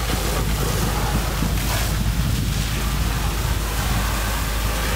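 Steady rushing hiss of a burning delivery van being doused with a fire hose, over a continuous low rumble.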